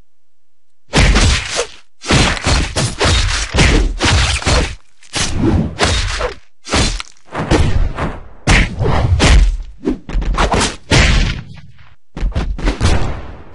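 Fight sound effects for a stick-figure animation: a rapid string of punch and hit impacts, heavy thuds and whacks following one another in quick bursts with short gaps. The hits start about a second in, after a moment of silence.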